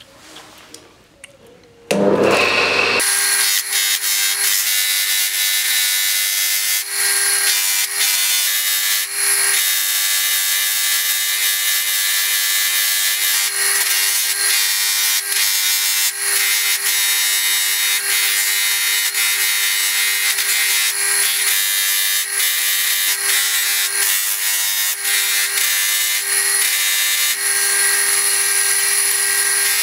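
A polishing machine's cloth buffing wheel starts about two seconds in and then runs steadily, with a continuous rubbing sound over the motor's hum as a threaded steel vise screw is held against the wheel to polish it.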